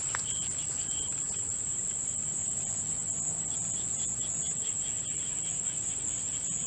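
Insect chorus, cricket-like: a steady, continuous high-pitched trill with a fainter, pulsing chirp beneath it.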